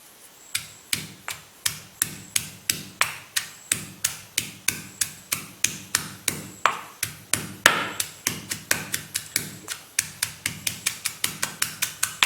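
Ginger and garlic being pounded with a pestle in a mortar: steady, evenly spaced knocks, about three a second, quickening slightly near the end.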